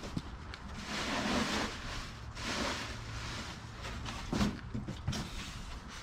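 Cardboard box and packing material being handled and rummaged through, with two rustling swishes and a few light knocks.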